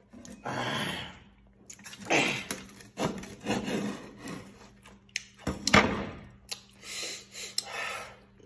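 A heavy cleaver cuts and scrapes through cooked meat on a wooden cutting board, in several rough strokes, with a sharp knock of the blade on the board a little past the middle. Chewing follows near the end.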